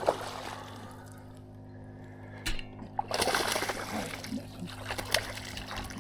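Water splashing and sloshing against the boat, with a sharp splash at the start and a longer spell of splashing about three seconds in, over a steady low hum.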